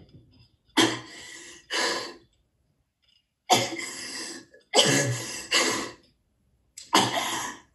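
A woman coughing harshly in several short fits, about six coughs with pauses between. The coughing is acted, a sign of sickness from poisoned food.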